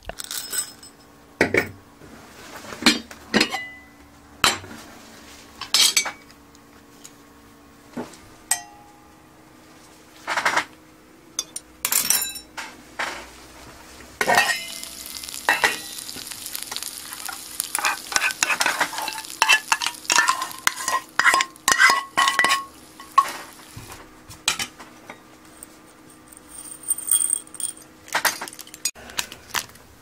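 Metal spoon and cutlery clinking and scraping against a frying pan and dishes in separate sharp clinks. From about halfway through, a sizzle of frying in the pan runs for several seconds under the clinks.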